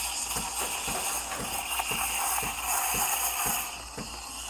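Breville espresso machine's steam wand hissing as it steams milk in a metal pitcher, over a steady pulsing of the machine's pump about four times a second. The hiss drops away near the end while the pulsing goes on.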